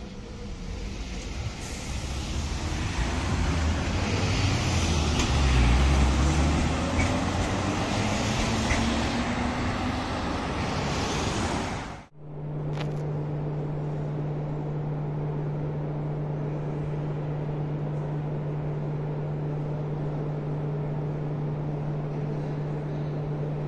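Electric tram pulling away and accelerating, its motor whine rising slowly in pitch over the rumble of the running gear. The sound then cuts off sharply and gives way to a steady, lower hum with one held tone.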